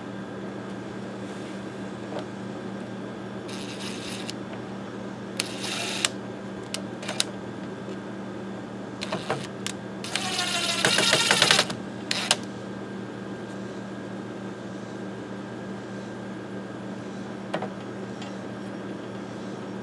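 Cordless drill driving screws: short bursts and clicks, then a longer run about ten seconds in with a rising whine as the motor spins up. A steady low hum lies underneath.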